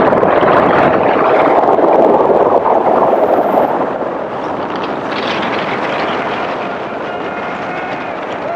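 Loud, steady rushing noise of a vehicle, dropping slightly about four seconds in.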